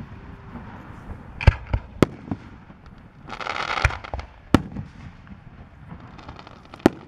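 Aerial fireworks shells bursting: about five sharp bangs spread over several seconds, with a burst of dense hissing around the middle.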